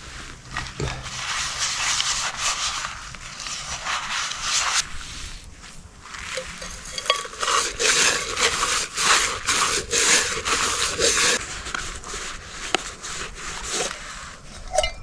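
Washing up camp cookware: pots and cutlery being scrubbed and scraped, with repeated clinks, in two spells.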